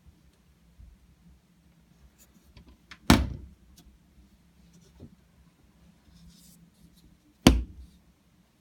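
Two loud knocks or bangs about four seconds apart, each cut short with a brief ringing tail, with a few faint clicks in between.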